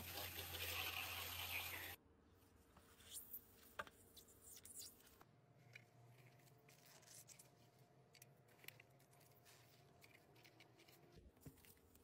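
Garden hose spray nozzle spraying water into an open mini fridge, a steady hiss that cuts off about two seconds in. Then near silence with faint, scattered taps and scrapes.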